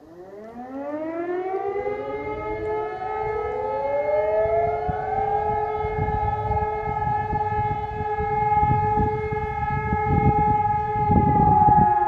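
Civil-defence sirens, E57 motor sirens among them, winding up one after another during the town's quarterly siren test, each rising in pitch and settling into a steady howl. Near the end one of them starts to fall in pitch.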